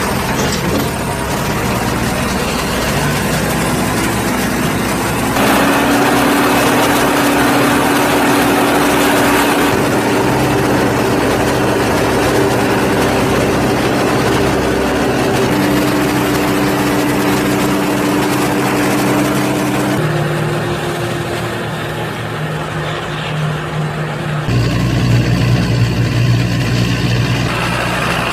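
Fendt Vario 926 tractor's six-cylinder diesel working hard as it pushes and levels chopped corn silage on the clamp, a steady, heavy engine drone. The engine note jumps abruptly to a new pitch about every five seconds.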